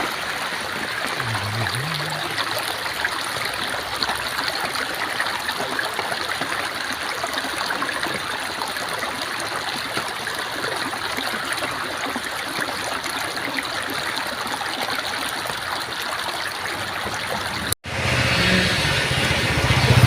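Heavy rain falling in a steady hiss of water. It cuts off suddenly near the end and a motor vehicle's engine takes over.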